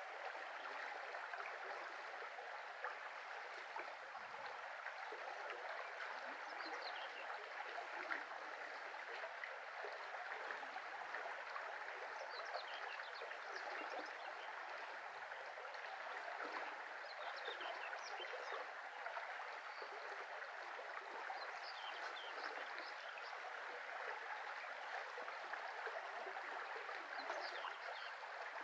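A shallow brook flowing steadily with a constant babbling rush of water. Small birds give short high chirps every few seconds over it.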